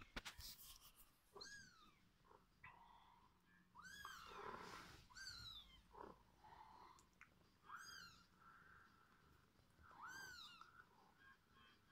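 Kittens mewing faintly while playing: about five short, high-pitched, arching mews spread over several seconds.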